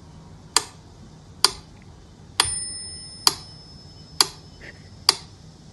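Clock-like ticking, one sharp tick a little less than every second. About two and a half seconds in, one tick sets off a high, bell-like ringing that fades over the next couple of seconds.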